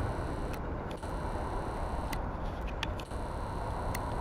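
Hi-rail pickup truck running along the rails, a steady engine and rolling noise with a few light, sharp clicks.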